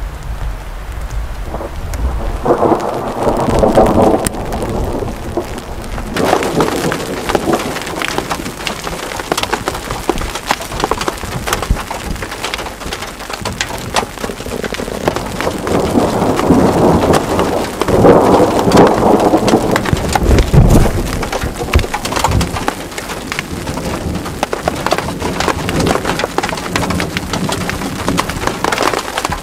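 Thunderstorm: steady rain patter that turns suddenly heavier about six seconds in, under rolls of thunder that swell loudest around three to four seconds in and again from about sixteen to twenty-one seconds in.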